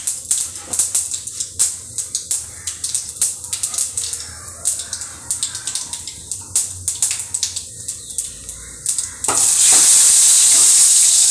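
Mustard seeds and urad dal crackling and popping in hot oil in a steel pan. About nine seconds in there is a sudden loud, steady sizzle as curry leaves go into the oil.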